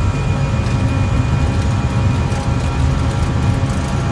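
Airliner jet engines at takeoff thrust heard from the cockpit during the takeoff roll: a steady, loud low rumble with a few faint steady whining tones above it.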